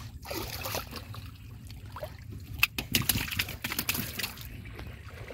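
Water sloshing and splashing, with irregular small clicks and knocks that are thickest in the middle of the stretch.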